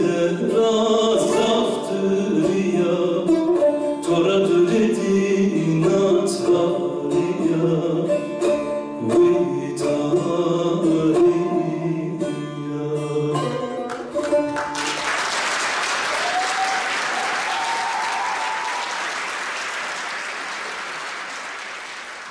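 Male voice singing with a plucked long-necked lute, the song ending about two-thirds of the way through; then audience applause that fades away.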